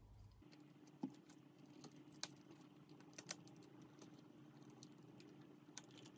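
Faint scattered clicks and rubbing of a flexible silicone mould being worked and peeled off a cast alabaster figurine by gloved hands.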